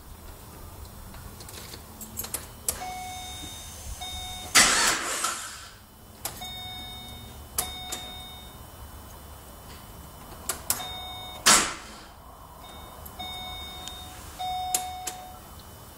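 A 2006 Holden VE Commodore SS V's warning chime beeps on and off, among scattered clicks. There are two short loud bursts of noise, about four and a half and eleven and a half seconds in, while the hard-starting V8 is not yet running.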